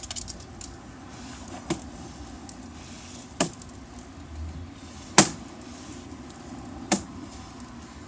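Sewer inspection camera's push cable being pulled back out of the line: four sharp clicks evenly spaced about a second and a half apart, the third the loudest, over a steady low hum.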